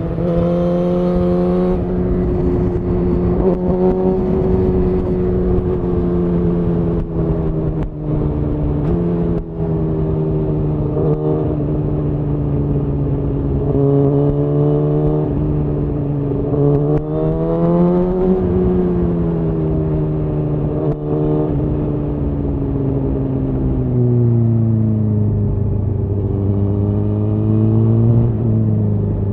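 Suzuki GSX-R1000R inline-four through a Yoshimura R-11 SQ exhaust, heard from on the bike while riding: engine note holding fairly steady with a few brief dips, rising and falling in the middle, then settling lower near the end.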